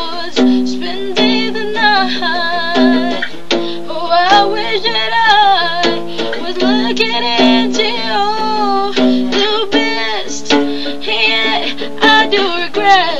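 A woman singing a slow melody while accompanying herself on guitar, the guitar picked and strummed in chords under her voice.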